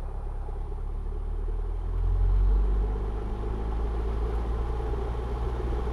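Cessna 172R's four-cylinder Lycoming engine and propeller running on the ground, heard from inside the cockpit: a steady low drone that swells briefly about two seconds in, then settles.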